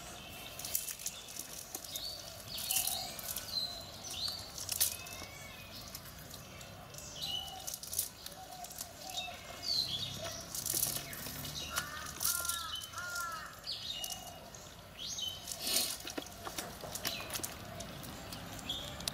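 Small birds chirping in short, repeated calls, with scattered sharp clicks and taps, a few of them louder than the birds.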